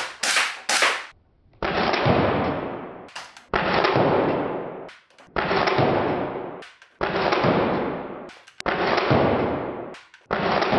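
QWK electric blowback Walther P99 gel blaster firing: sharp shots about two a second for the first second, then six longer, duller shots roughly every two seconds, each dying away slowly, some with a short click just before.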